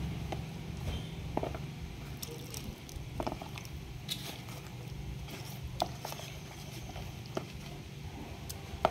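Metal spoon stirring thick rice-flour batter in a plastic bowl, with irregular clicks and knocks of the spoon against the bowl every second or two.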